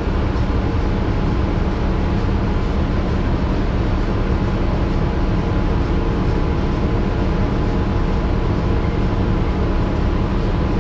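Inside a transit bus: the engine and cabin give a steady low drone, unchanging in level throughout.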